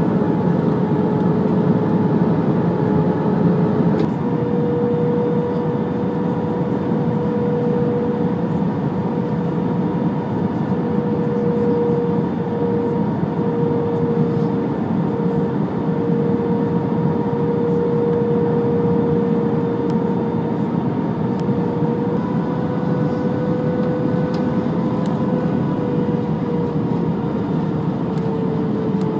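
Airbus A321 cabin noise on final approach: the steady roar of the jet engines and airflow with a steady hum over it. The hum steps slightly higher about four seconds in.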